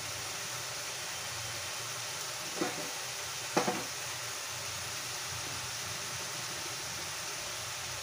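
Two short metal clanks, the second louder and doubled, as a stainless lid and ladle are set on an aluminium pot of simmering fish curry. Under them is a steady sizzling hiss from the stove.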